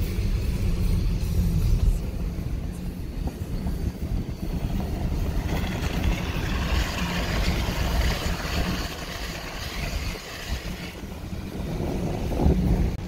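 A Jaguar car driving slowly along a packed-snow trail, heard from inside the cabin as a steady low rumble of engine and tyres. A brighter hiss comes in through the middle stretch.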